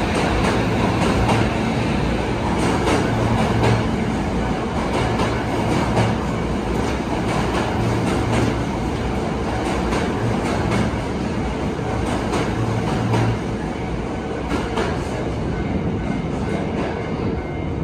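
Electric commuter train moving through an underground station: a steady rumble, with the wheels clicking and knocking over rail joints.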